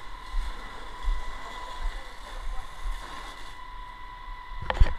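Fire hose spraying a jet of water onto a burning building, with low rumbling on the microphone and a steady high-pitched tone throughout. A loud knock near the end.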